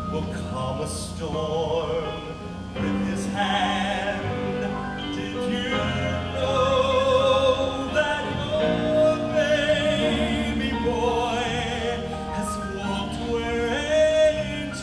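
Male voices singing in an operatic style, holding long notes with a strong vibrato, over piano accompaniment.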